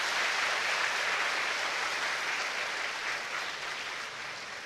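Large seated audience applauding, the clapping dense and even at first and slowly thinning out toward the end.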